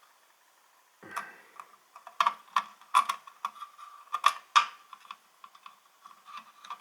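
Irregular sharp clicks and taps of a screwdriver and small hardware as the tight retaining screw of an M.2 SSD is worked loose and the drive is freed. There are several louder knocks in the middle.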